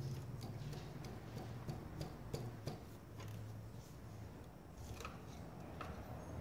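Scattered light metallic clicks and taps of hand tools working among engine parts, irregular rather than a steady rhythm, over a low hum.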